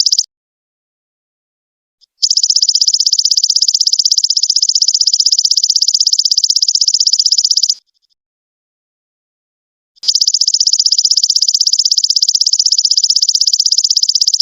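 Golden locust (belalang emas) insect calling: high, buzzing trills of rapid pulses, each several seconds long, with pauses of about two seconds between them.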